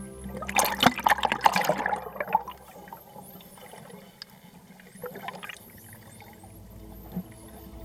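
Water splashing and bubbling over soft background music, in a loud crackling burst from about half a second to two and a half seconds in, and again briefly about five seconds in.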